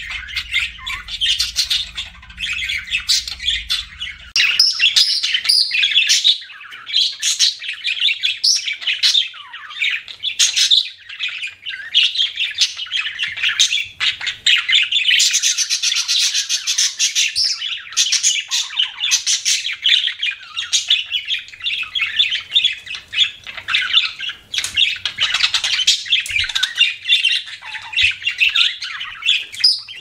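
Budgerigars chattering and warbling without a break, a dense run of short chirps and calls, with a high buzzy stretch about 15 to 17 seconds in.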